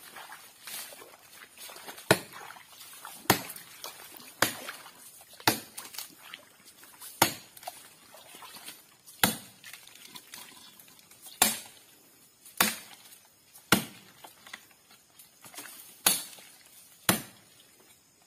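Axe chopping into the trunk of a sago palm being felled. About a dozen sharp blows come roughly a second apart, with a few longer pauses, starting about two seconds in.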